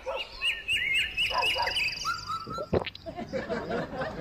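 Comic sound effect of high, squeaky animal-like yelps, a quick run of about seven short rising squeals in the first two seconds, followed by a sharp click and lower voice-like sounds.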